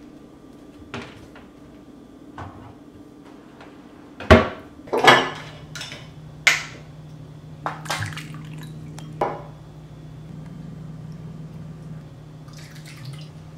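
Knocks and clinks of a glass vodka bottle and a plastic shot cup handled on a kitchen counter, the loudest knock about four seconds in, as the cap is twisted off. Near the end, vodka is poured into the cup. A low steady hum runs underneath from about five seconds in.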